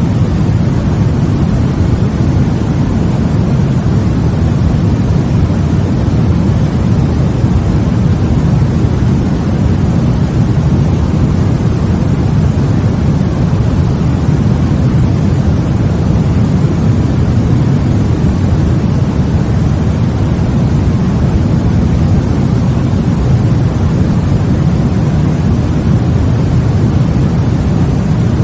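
Steady sleep-aid white noise, a deep, even hiss that does not change, strongest in the low range.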